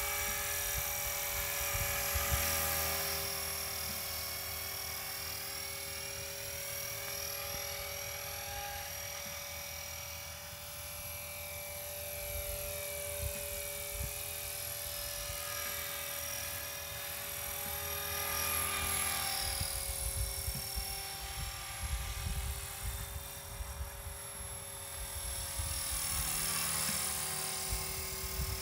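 Blade 400 electric RC helicopter in flight: a steady whine from its motor and rotors that drifts slightly in pitch as it moves about. Low wind rumble on the microphone comes and goes, heaviest near the end.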